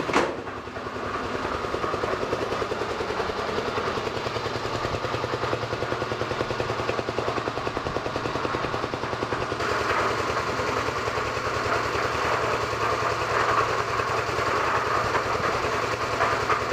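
A 6.5 HP Petter-type single-cylinder diesel engine running steadily with a rapid chugging rhythm. A brief sharp knock comes right at the start.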